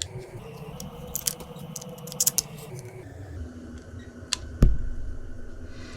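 Small metallic clicks and scrapes of an Allen key tightening the longer mounting bolt on a Quad Lock handlebar mount, with one dull thump a little past halfway.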